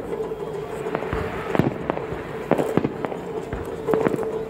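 Aerial fireworks bursting: a run of sharp bangs at uneven intervals, with a steady high tone held underneath.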